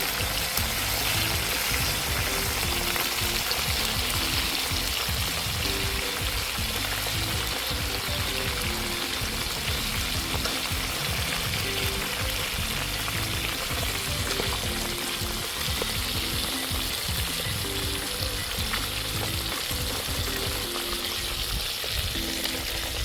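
Fish frying in hot oil: a steady, dense sizzle.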